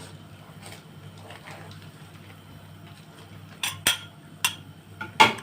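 Wooden spoon stirring in a cooking pot, knocking against the pot several times in sharp clacks starting about three and a half seconds in, the loudest near the end, over a low steady hum.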